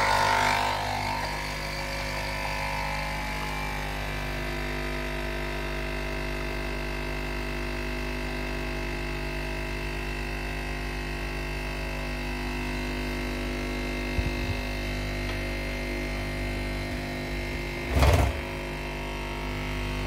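Krups Nespresso capsule coffee machine brewing: its pump starts suddenly and hums steadily as coffee pours into the cup, with a brief louder burst of noise near the end.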